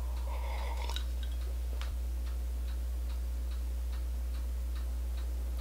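Steady low electrical hum with faint, regular ticking about two to three times a second, and a soft sip of coffee in the first second.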